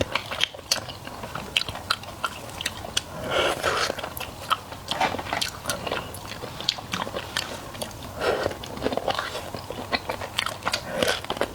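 Close-miked eating: a person biting and chewing food, with many sharp crunchy mouth clicks and a few longer, louder mouth sounds spread through.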